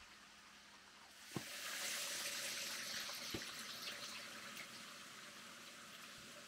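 A steady rushing hiss of water comes in about a second in and eases off after about four seconds, with two soft thuds along the way.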